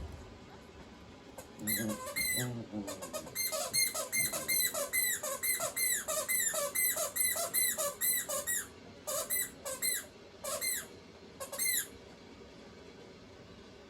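A rubber squeaky ball being bitten rapidly by a small dog, a fast run of short squeaks that each drop in pitch. They come about three a second at their fastest, then thin out and stop near the end.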